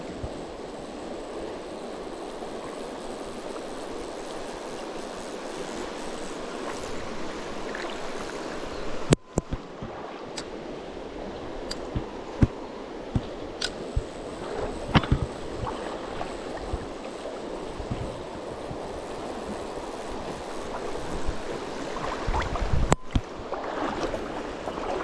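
Mountain stream water rushing steadily over rocks, with a few sharp clicks and knocks scattered through it.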